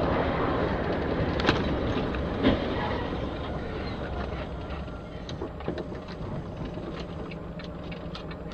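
Steady rushing road and spray noise of a vehicle driving on a rain-soaked highway, with two sharp knocks about one and a half and two and a half seconds in and scattered small clicks after that, as a car ahead crashes and debris is thrown across the road.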